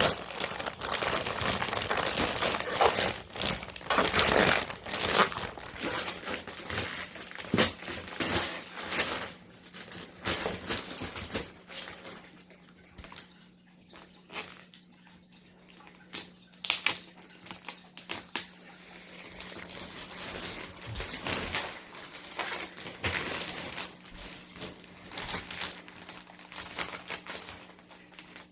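Plastic wrapping crinkling and rustling as it is pulled off a compressed memory foam mattress. Busy and loud for the first ten seconds or so, then quieter with scattered rustles.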